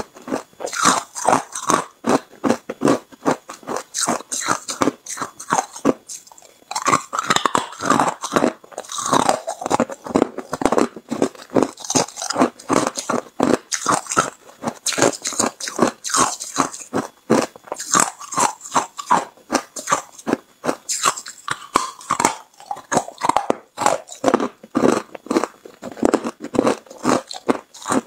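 A person biting and chewing hard ice: rapid, crisp crunches, several a second, with a short pause about six seconds in.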